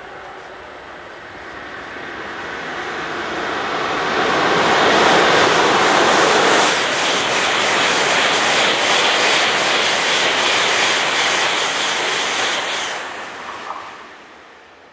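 Tohoku Shinkansen E2-series train running through the station at speed: a rush of wheel and air noise that builds over a few seconds, holds with a fast, even clatter from the passing wheelsets, then dies away quickly near the end.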